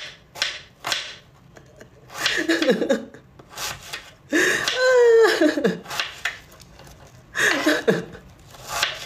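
A woman laughing and giggling in short bursts, with drawn-out vocal sounds that slide in pitch.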